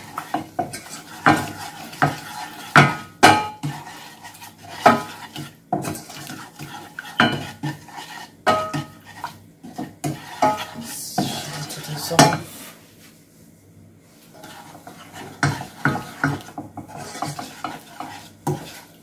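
Wooden spoon stirring a thin sugar-and-Worcestershire sauce in a stainless steel saucepan while the sugar dissolves, with irregular knocks and scrapes against the sides of the pot. The stirring eases off briefly about thirteen seconds in.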